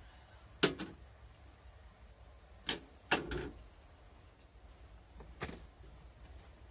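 Four sharp plastic clicks and knocks from a film developing tank being opened and its reel handled to get the film out. The loudest comes about half a second in.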